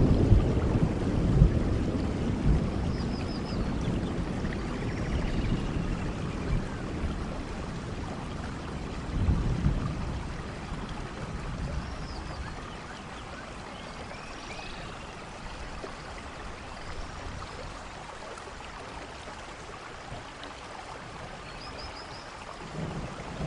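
Steady rainfall in a rainforest, with low rolls of thunder dying away over the first few seconds and another brief rumble about nine seconds in. Faint high calls sound now and then over the rain.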